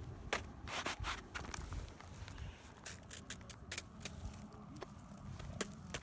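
Irregular crunches and scrapes of footsteps and handling on old granular snow and loose rock.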